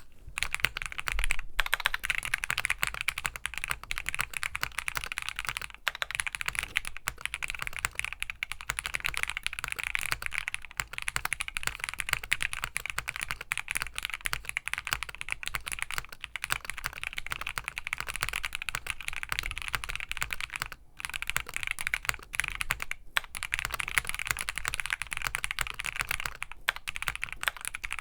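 Fast continuous typing on a Keychron Q6 Max full-size mechanical keyboard with factory-lubed Gateron Jupiter Red linear switches, PBT keycaps and a polycarbonate plate, with a few brief pauses. The owner finds the factory lube worn, so the switches sound higher pitched and the stabilizers worse than when new.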